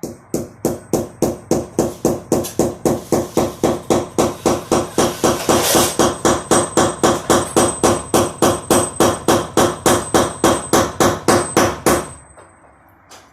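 A hammer striking in a fast, even rhythm of about four blows a second, which stops after about twelve seconds.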